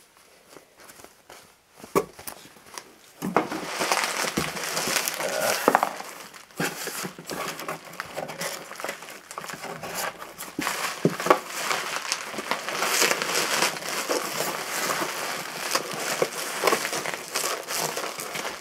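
Bubble wrap being pulled out of a cardboard box and handled, a continuous crinkling and crackling that starts about three seconds in, after a few light taps.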